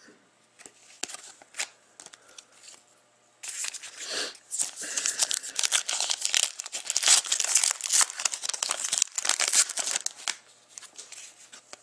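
A hockey trading-card pack's wrapper being torn open and crinkled by hand. A few light rustles come first, then a loud stretch of tearing and crinkling starts about three and a half seconds in, lasts about six seconds and tapers off near the end.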